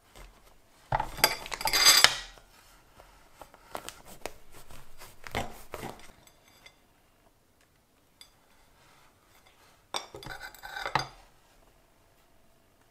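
Table knife clinking and scraping against a ceramic plate as a chocolate-topped doughnut is cut, in three bouts: a loud clatter about a second in, softer scraping around four to six seconds, and another clatter around ten seconds in.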